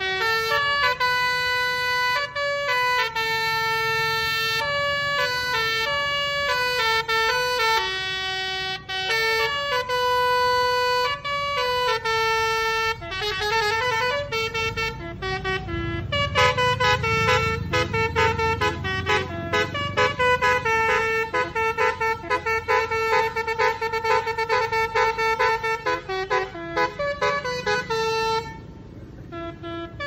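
Tour bus's basuri telolet horn, a multi-note electric horn, playing a melody of held notes that step up and down in pitch, then fast repeated notes from about sixteen seconds in. The bus's engine rumbles under it as the bus passes close, and the tune breaks off near the end.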